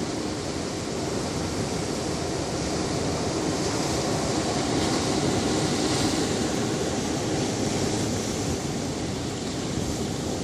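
Ocean surf washing onto a beach: a steady rush of breaking waves that swells a little before the middle and then eases off.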